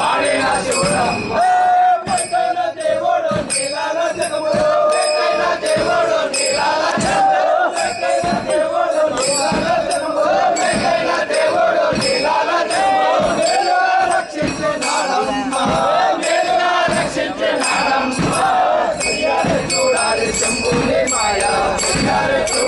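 A crowd of men chanting and shouting together, over a steady beat of percussion.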